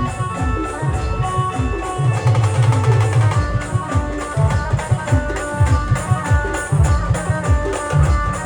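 A Maharashtrian band plays: fast, heavy drum beats under held melody notes from wind and keyboard instruments.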